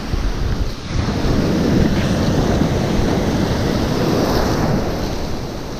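Small waves breaking and whitewater washing through the shallows: a steady rushing noise with no clear single splash.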